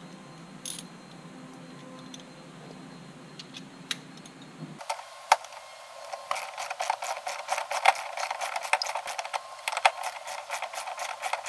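Ratchet wrench with a T47 Torx bit clicking rapidly as the seat-belt anchor bolt is loosened, starting about five seconds in, with a few single sharp clicks before and among the run.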